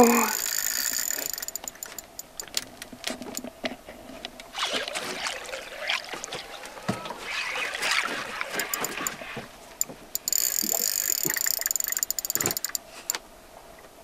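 Spinning reel's drag buzzing as a heavy fish takes line: a high-pitched buzz in the first second or so and again for a couple of seconds near the end. Irregular clicks and a rough rasping stretch come in between.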